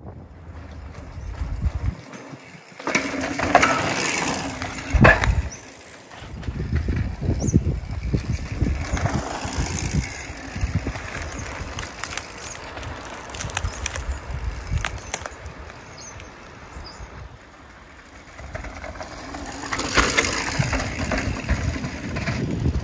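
Mountain bike riding along a dirt singletrack trail: tyres crunching over dirt and the bike rattling and knocking over bumps, with a rumbling that rises and falls. It is louder a few seconds in and again near the end.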